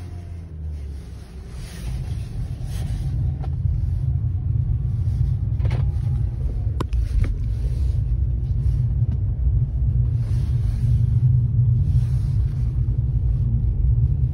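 Low steady rumble of a BMW's engine running, heard inside the car's cabin, growing louder over the first couple of seconds and then holding, with a few light clicks around the middle.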